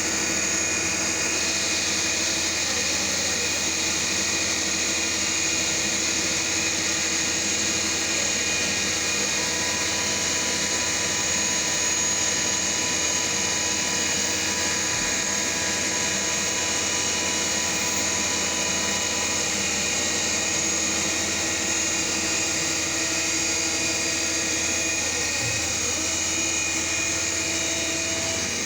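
CNC milling machine running steadily as it mills a groove into a shaft turned on a rotary fourth axis. The spindle gives a constant whine with several steady tones over an even noise of cutting.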